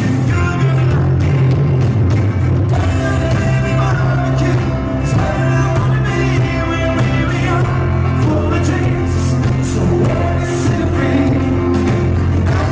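Live rock band with a lead singer: vocals over electric guitars, fiddle, bass and drums, playing loudly and steadily.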